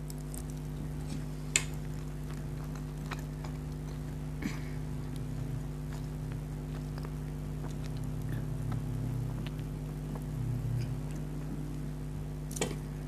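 A person eating spicy instant noodles: soft chewing with a few sharp clicks, the loudest about one and a half seconds in and another near the end, over a steady background hum.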